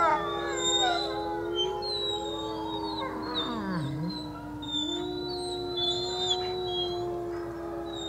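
Wolf pack howling in chorus: several long, held howls overlap, with higher wavering howls above them. About four seconds in, one call dips low and rises again.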